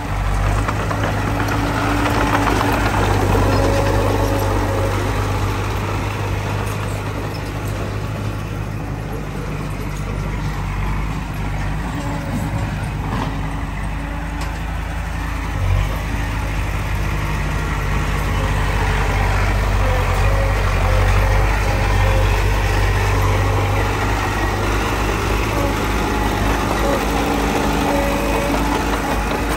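Komatsu D20P crawler dozer's diesel engine running steadily as it works soil. There is a single knock a little past halfway.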